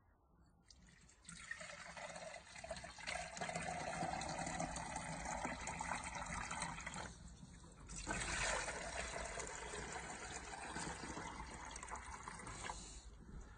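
Water pumped by hand from a PVF-65 piston pump cylinder pours out of its side outlet into a plastic measuring jug as the jug fills. It comes in two long spells, with a brief break a little past halfway.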